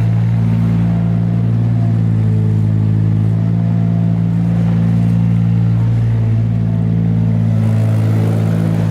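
Steady, low engine-like hum that holds one pitch without revving or stopping.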